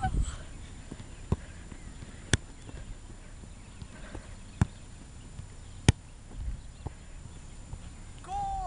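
Soccer ball being kicked up into the air: a few sharp single thumps, one to two seconds apart. A short call from a voice near the end.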